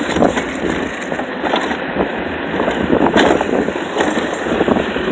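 A scooter's wheels rolling over sidewalk concrete: a steady rough rumble with frequent small rattles and jolts.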